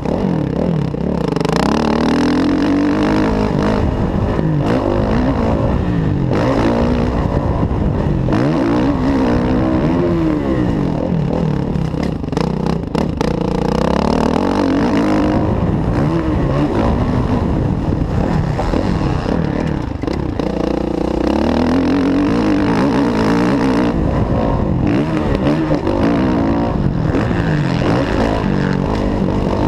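Kawasaki KX450F's single-cylinder four-stroke engine revving up and falling back again and again as the dirt bike is ridden hard round a motocross track, with brief throttle-offs about twelve and twenty seconds in.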